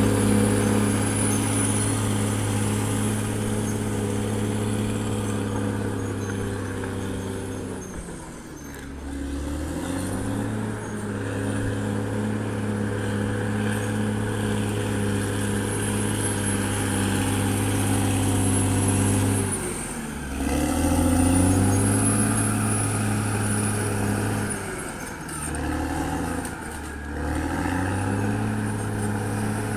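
Caterpillar D6R XL bulldozer's diesel engine running steadily, its revs dropping and picking back up three times: about a quarter of the way in, about two-thirds in, and again near the end.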